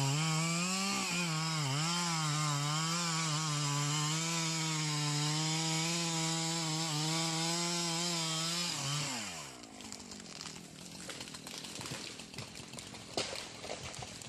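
Two-stroke chainsaw running at high throttle, its pitch dipping and wavering as it cuts. About nine seconds in the throttle is released and the engine note falls away, leaving a quieter stretch of crackling with a few knocks.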